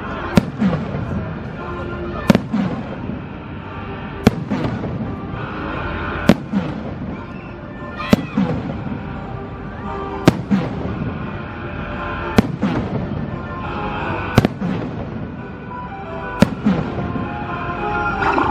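Aerial firework shells bursting in a regular series, one sharp bang about every two seconds, each with a short rolling tail. Music plays underneath throughout.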